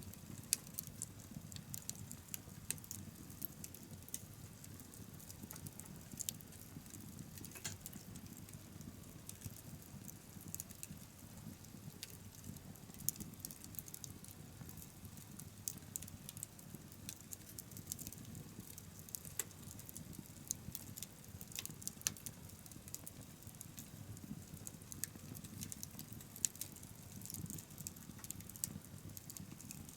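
Wood bonfire crackling: frequent small sharp pops and snaps at irregular intervals over a low, steady rumble of burning.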